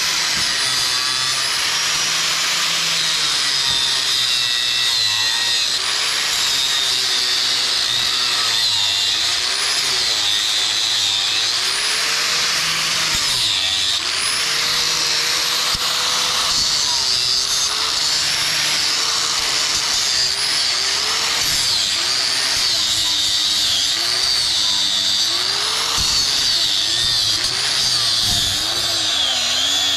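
Angle grinder running continuously while cutting metal, its high whine dipping and recovering again and again as it bogs under load.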